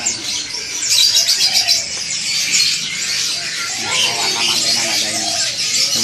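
Many caged songbirds chirping and twittering at once, a dense high-pitched chatter that goes on without a break, with indistinct voices underneath for a moment in the middle.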